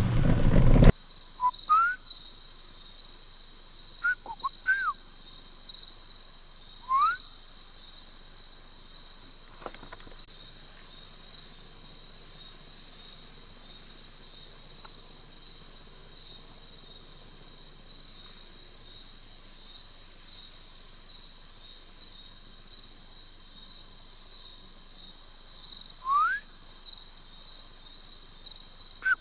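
A steady, high-pitched chorus of night insects, with a few short rising whistled calls of an unseen night animal scattered through, about a second apart near the start and again near the end. A brief burst of noise fills the first second and cuts off.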